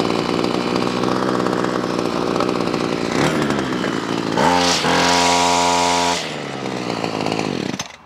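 Ryobi CS26 two-stroke string trimmer engine idling, revved up to full throttle about four and a half seconds in, held there for under two seconds, then dropped back to idle. It falls silent near the end. The run follows tuning of the high-speed mixture screw on its replacement carburetor, set by ear for peak RPM.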